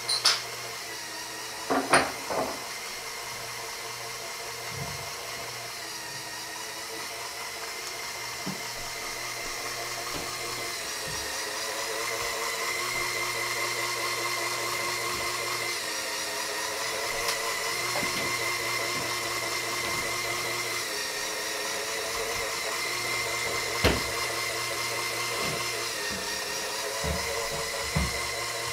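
LEGO Power Functions electric motors and plastic gear trains run steadily with a whine as they drive the walking shoes of a LEGO walking-dragline model. A few sharp clicks come about two seconds in, again later, and near the end.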